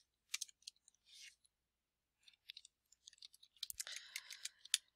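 Faint clicks of computer keyboard keys being typed: a few single keystrokes early, then a quicker run of keystrokes in the last two and a half seconds.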